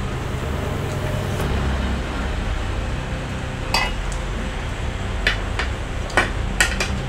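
Spoons clinking against ceramic plates and bowls as people eat: a handful of short, sharp clinks from about halfway through, over a steady low rumble.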